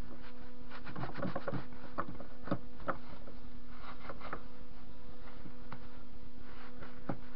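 A hand with a cloth wiping and scraping old grease off the cast-iron cross slide of a TV-16 metal lathe: irregular small scrapes and knocks, busiest in the first half, over a steady low hum.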